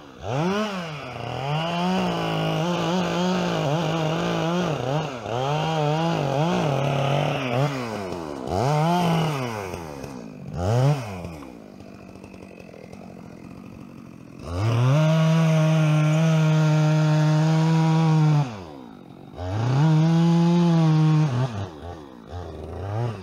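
Two-stroke chainsaw revving up and down and cutting, held at full throttle for several seconds at a time. It drops to a low idle for a few seconds about halfway through, then revs hard again, with short blips of the throttle near the end.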